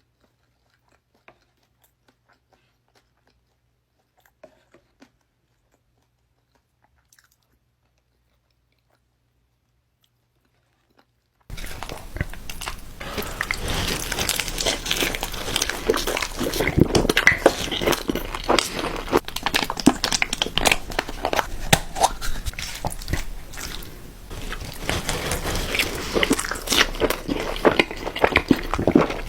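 Close-miked eating of crunchy food: loud, rapid crunching and chewing with many sharp crackles, starting abruptly about eleven seconds in after near silence with a few faint clicks.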